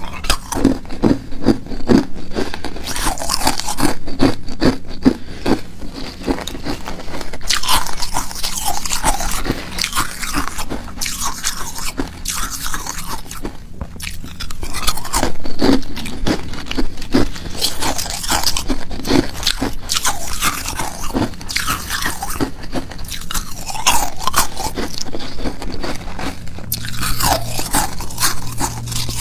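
Hard ice cubes being bitten and chewed close to the microphone: repeated loud, sharp cracks and crunches as the ice breaks between the teeth, coming in runs throughout. The cubes are hollow tube-shaped igloo ice.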